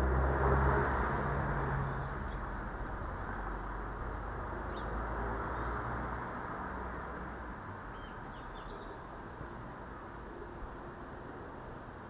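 A low rumble, loudest at the start and fading away over the first half, under a few short, faint high bird chirps scattered through.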